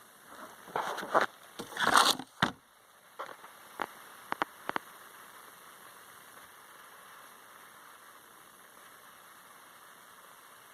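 Rustling, crackling handling noise for about two seconds, then about five short, sharp clicks in quick succession, then a steady hiss.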